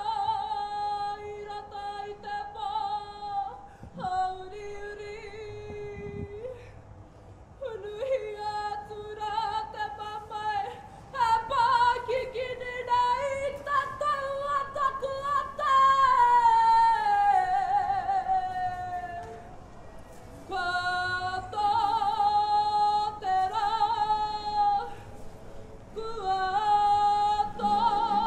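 A lone female voice singing long, held, slightly wavering phrases separated by short breaths, with a slow downward slide in pitch about two thirds of the way through.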